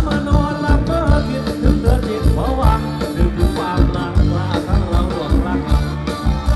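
Live band playing Thai ramwong dance music, with a steady drum beat, bass and a singer.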